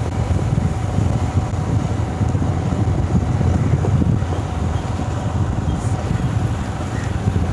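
Wind buffeting the microphone over the low, steady rumble of a motorcycle riding along a road.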